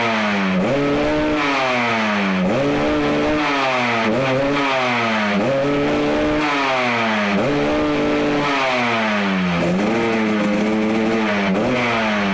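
Yamaha RX-King two-stroke single-cylinder engine revved in repeated throttle blips, its pitch jumping up and sliding back down roughly once a second. The engine is tuned for the deep 'ngorok' (snoring) growl.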